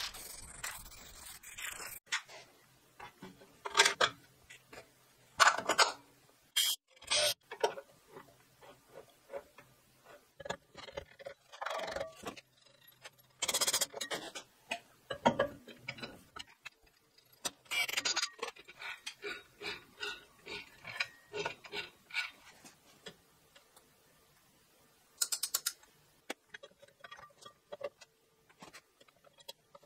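Metal parts of an Argo 8x8 gearbox clinking and knocking as a sprocket, disc and shifter assembly are fitted by hand. The clicks and clunks are irregular, with a short run of rapid clicks near the end.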